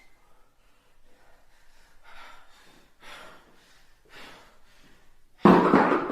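Faint, quick breaths about once a second, then a sudden loud gasping cry near the end.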